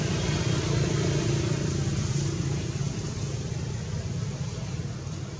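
A low, steady engine rumble, like a motor vehicle running nearby, easing off slightly in the second half.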